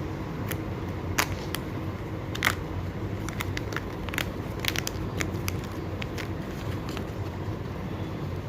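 Kinder Joy egg packaging being handled, giving scattered sharp plastic clicks and crackles, the loudest about a second in and again about two and a half seconds in, over a steady low hum.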